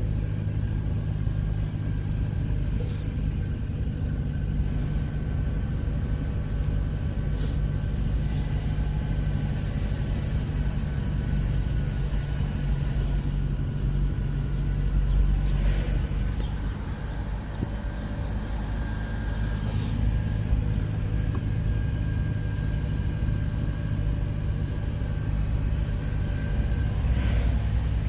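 A car driving at a steady pace: continuous low engine and road rumble, with a few brief faint clicks.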